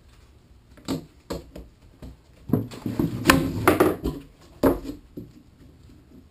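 Hard tubes and wooden rods clacking and knocking on a wooden workbench as they are picked up and handled, a few single knocks and then a denser clatter in the middle.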